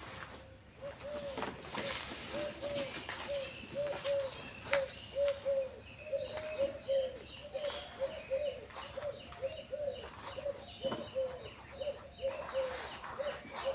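Dry cement and dirt crumbling between fingers, with scattered crisp crackles. Over them, a bird calls steadily, short repeated notes of the same pitch.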